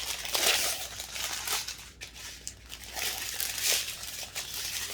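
Small plastic bags of diamond-painting resin drills being handled, with a crinkling, crackly rustle.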